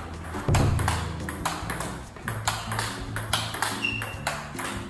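Table tennis ball rallying back and forth: a quick, even run of sharp pocks as the celluloid-type ball is struck by rubber-covered rackets and bounces on the table, about two to three a second. The soft rubber gives the strike a high-pitched pock.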